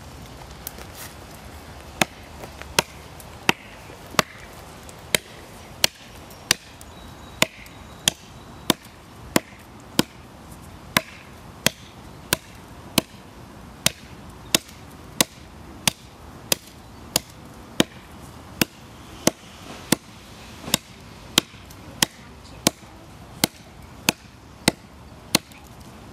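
Gossman 9-inch Tusker chopping knife striking into the trunk of a small tree: a steady run of sharp chops, about one every three-quarters of a second, starting about two seconds in.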